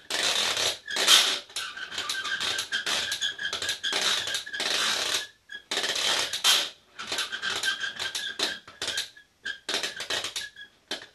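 Winding handle of a Gakken toy helicopter launcher being cranked to twist the rubber bands inside its post, the power for a Leonardo da Vinci helicopter model. Quick runs of scratchy clicking with a thin squeak through them, pausing briefly about halfway and again a couple of seconds before it stops.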